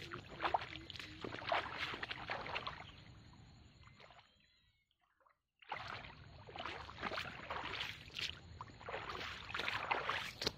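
Rubber waders wading through shallow, muddy pond water: irregular sloshing and splashing with each step. The splashing fades to almost nothing for about a second midway, then picks up again.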